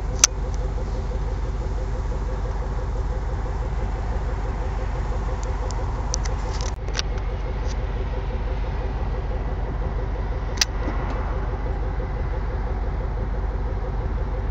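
Steady low mechanical rumble with a constant hum, broken by a sharp click just after the start and another about ten seconds in.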